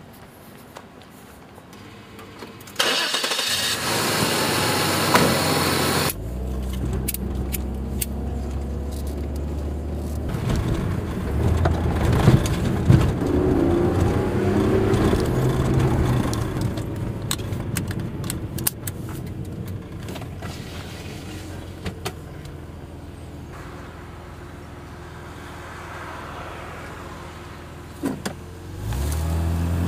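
A car engine heard from inside the cabin: a loud rush for a few seconds after a quiet start, then the engine runs with a steady low hum. Near the end it revs, rising in pitch as the car speeds up.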